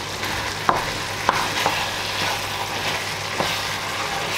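Minced-meat sauce sizzling steadily in a frying pan while it is stirred with a wooden spoon, with four short sharp knocks of the spoon against the pan.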